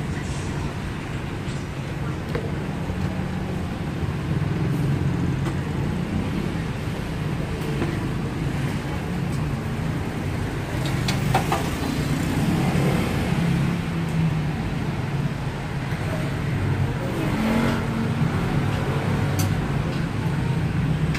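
Steady low engine rumble, like nearby motor traffic or an idling motor, with a few light taps and scrapes.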